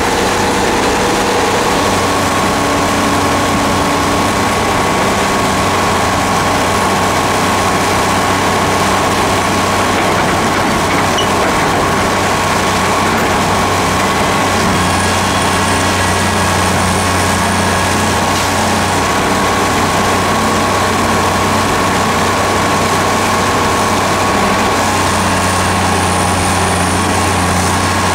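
Hyundai Robex 290LC-3 excavator's diesel engine running steadily while the machine works, with a steady high whine over the low engine note.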